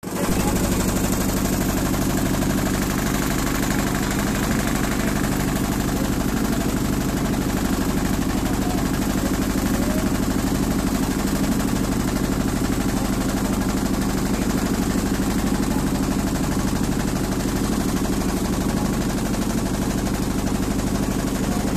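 Passenger boat's engine running steadily, a constant low engine hum with a fast rattle in it.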